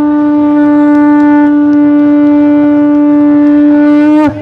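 Conch shell (shankha) blown in one long, loud, steady note that bends down in pitch and stops near the end.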